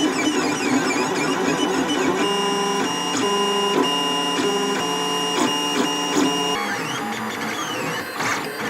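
3D printer's stepper motors whining as the print head moves, the tones jumping to new pitches every fraction of a second, with a few gliding up and down near the end.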